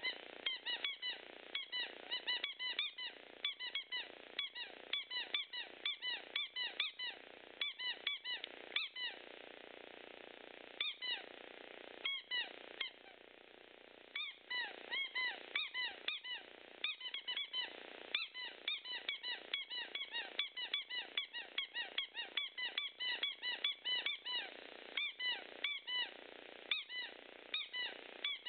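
Rubber squeaky ball toy squeaking over and over as a chow chow puppy chews on it, two or three short squeaks a second, with a couple of brief pauses.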